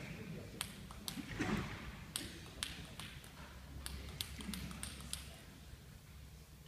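Table tennis ball bounced on the table by a player preparing to serve: light, sharp ticks at uneven intervals that stop about five seconds in, over a faint murmur in the hall.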